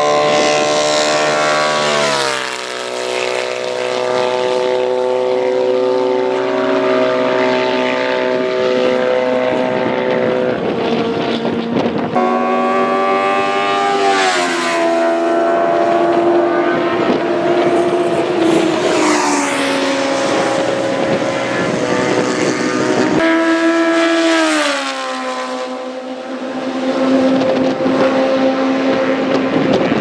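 Classic racing sidecar outfits going flat out along the straight, their engines running at high revs. Each engine note drops in pitch as an outfit passes, about two seconds in, again around 14 and 19 seconds, and near 24 seconds, with more engines closing in at the end.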